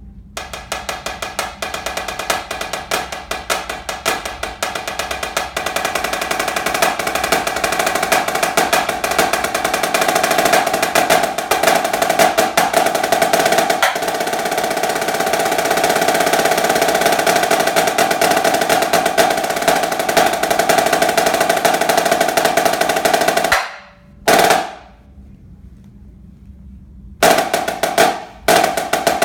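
Snare drum solo: rapid strokes build into a long sustained roll that cuts off sharply about three-quarters of the way through. A single hit follows, then a short pause, and the playing picks up again near the end.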